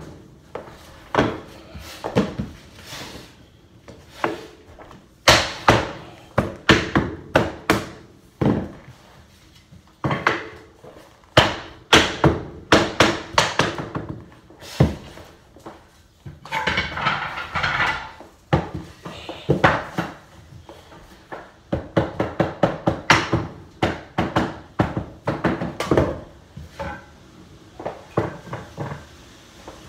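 Hammering on hardwood floor boards being installed: clusters of quick, sharp knocks, several a second, with short pauses between them. A short stretch of scraping noise comes a little past halfway.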